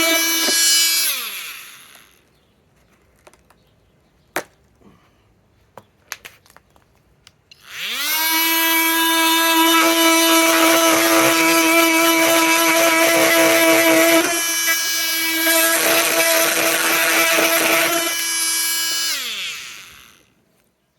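Flex FX 4111 cordless oscillating multi-tool running, then winding down about a second in. After a few light clicks it spins up again around eight seconds in and runs steadily with a rough, gritty sound from the blade cutting, before winding down near the end.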